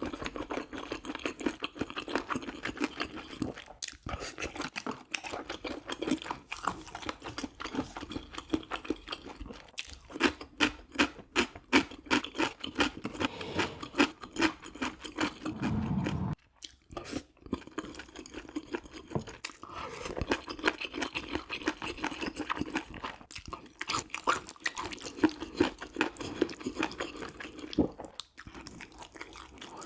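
A person chewing and crunching mouthfuls of food close to the microphone, with irregular wet clicks and smacks. A dense run of crisp crunches comes about ten seconds in, and a short, heavier low sound near the middle stops abruptly.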